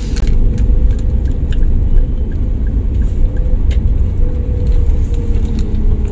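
Steady low rumble of a car heard from inside the cabin, with a few scattered light clicks over it.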